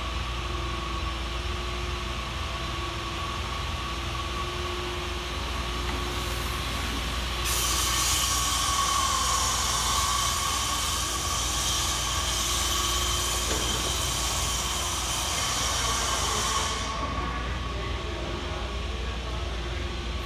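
Steady machinery hum of a large warehouse store, with a few level tones running through it. A loud hiss starts suddenly about seven seconds in and cuts off about nine seconds later.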